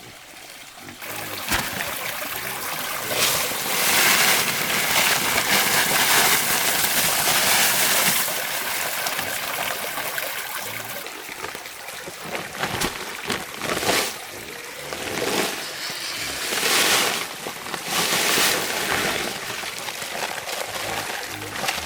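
Water splashing and trickling, in uneven surges.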